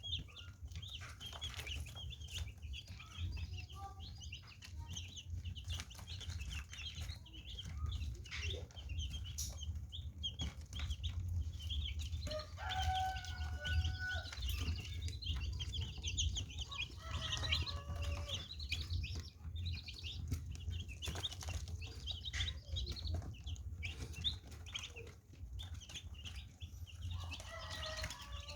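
A group of baby chicks peeping continuously in many short, high chirps, with a few longer, lower calls among them. A steady low hum runs underneath.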